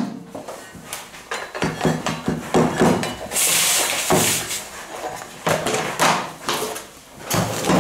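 Metal clatter of a stand mixer's aluminium flat beater being handled: irregular knocks and clinks, with a brief scraping sound about three and a half seconds in.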